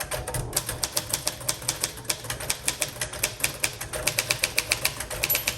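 Fast typing on a 1939 Royal Aristocrat portable manual typewriter: a quick, even run of key and typebar strikes, about eight a second, stopping just before the end.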